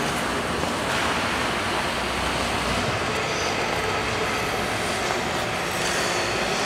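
Steady, even background noise of an indoor ice rink, with no distinct events standing out.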